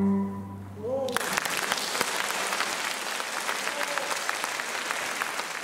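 The last chord of two marimbas and grand piano dies away, and about a second in an audience breaks into steady applause.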